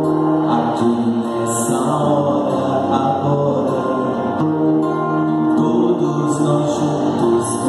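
Church praise band playing a slow worship song, with long held chords and voices.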